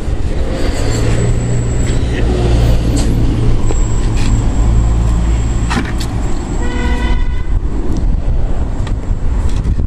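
Steady low rumble with a short vehicle horn toot about seven seconds in.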